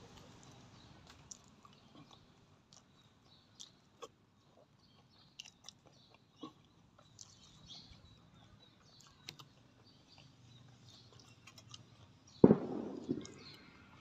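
Close chewing and small wet mouth clicks of a person eating, scattered irregularly. Near the end comes one much louder sudden thump, the loudest thing heard, followed by a smaller click.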